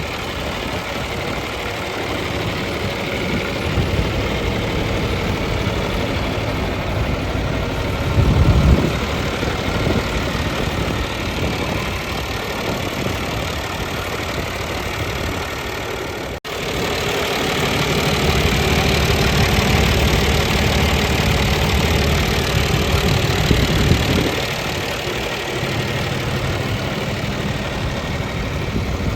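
John Deere 2840 tractor's diesel engine running at idle. There is a brief louder surge about a third of the way in. After a sudden break past the middle, it runs louder for several seconds before settling back.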